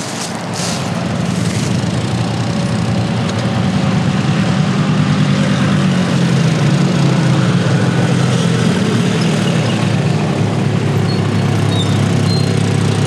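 Several ATV engines running at low speed, growing louder over the first few seconds and then holding a steady, idling hum.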